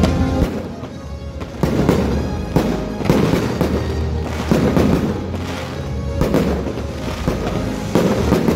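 Fireworks going off over music: repeated sharp bangs and crackles, roughly one every half second to second.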